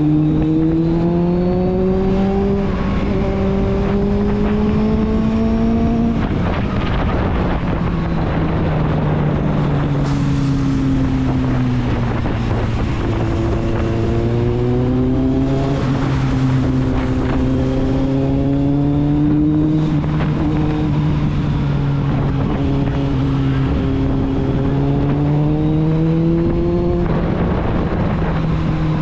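Kawasaki Z750's inline-four engine and exhaust while riding: the pitch climbs steadily under acceleration for about six seconds, then drops suddenly. It settles lower and rises and falls slowly, climbing again before dropping once more near the end.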